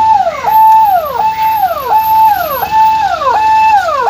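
Ambulance siren sounding loudly in a repeating cycle: a held note that drops sharply in pitch, then starts again, about three cycles every two seconds.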